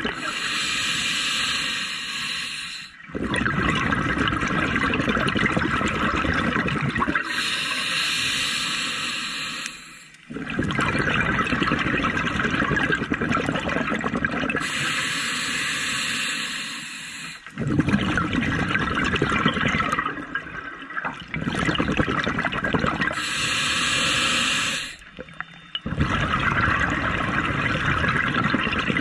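Scuba diver breathing underwater through a regulator, four slow breaths: each a hissing inhale of about three seconds, then several seconds of exhaled bubbles gurgling out.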